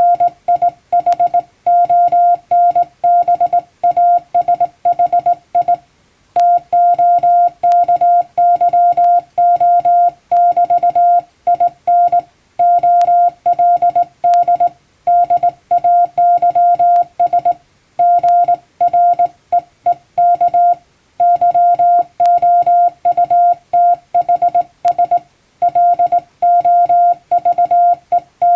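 Hand-keyed Morse code in plain English text: a single steady beep switched on and off in dots and dashes, with short gaps between letters and a few longer pauses between words.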